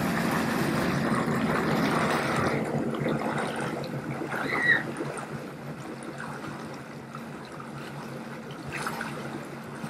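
Sea-Doo jet ski idling, its jet pump churning pool water into a steady rushing wash over a low engine hum, louder for the first couple of seconds and then easing. A short high-pitched sound cuts in a little before halfway.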